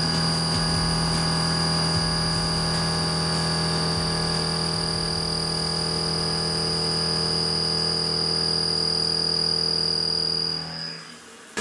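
Machine tool running steadily: a constant high-pitched whine over a low hum, which fades away near the end.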